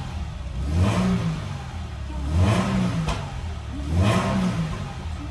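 Toyota 86's 2.0-litre flat-four, fitted with an HKS exhaust manifold and muffler, blipped three times while parked, the revs rising and falling about a second and a half apart. It revs up cleanly and freely.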